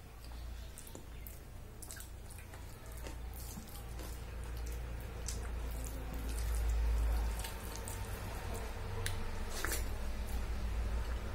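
Wet eating sounds: scattered clicks and squelches of soft khichdi being mixed and scooped by hand on a steel plate, and chewing, over a steady low hum.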